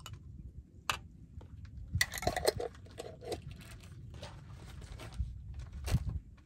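Light clinks, taps and knocks of a spoon, glass jar and plastic bowls being handled and set down on a table, with a busier cluster of clatter about two seconds in and another knock near the end.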